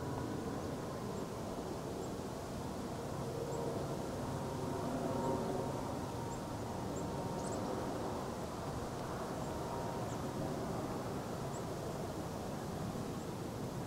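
Steady low rumble of distant engine noise, with a faint steady hum and a few faint, short high chirps.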